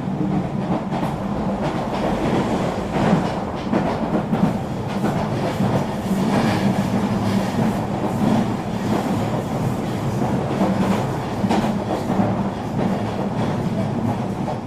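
Regional train running at speed: a steady rumble with a low hum, broken by scattered clicks of the wheels over rail joints.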